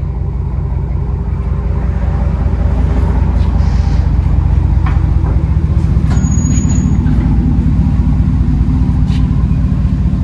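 2010 GMC Yukon Denali's 6.2-litre V8 running through a single 3-inch exhaust with a Flowmaster Super 10 race muffler, stock muffler and resonator removed: a steady deep rumble from the tailpipe that grows louder over the first few seconds and then holds.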